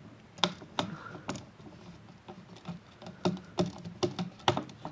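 Scattered light clicks and taps of a screwdriver tightening the green ground screw on an electrical receptacle, with the ground wire looped under it, about a dozen at uneven spacing.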